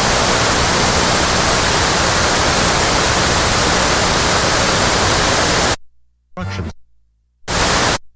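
Analog TV static hiss between channels, loud and steady, cut off abruptly near the end. A brief snatch of broadcast sound follows, then a short burst of static again as the channels change.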